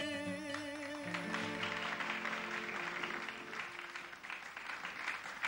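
A male folk singer's last held note and sustained harmonium chords die away over the first few seconds, while an audience breaks into applause that carries on to the end.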